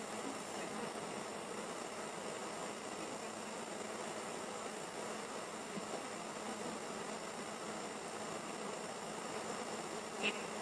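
Steady hiss of a video doorbell's microphone picking up outdoor background, with a brief high chirp near the end.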